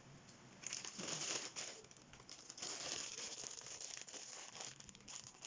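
Dry sotanghon (mung bean glass noodles) being pulled apart by hand, the brittle strands crackling and crinkling in uneven bursts that start about half a second in.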